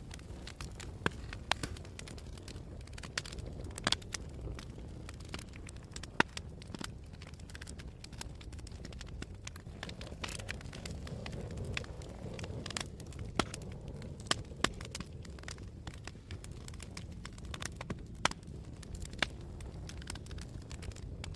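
Wood fire burning in a fireplace: a steady low rumble of flames with irregular crackles and occasional sharper pops.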